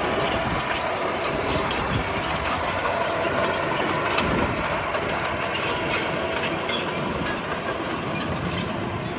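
Komatsu D31P crawler bulldozer working, its diesel engine running steadily under a dense, irregular clatter of metal clicks from the steel tracks.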